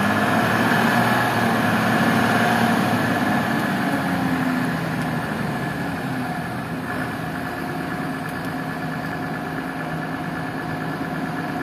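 A truck's six-cylinder diesel engine idling steadily. Its pitch lifts a little at first and eases back down about halfway through.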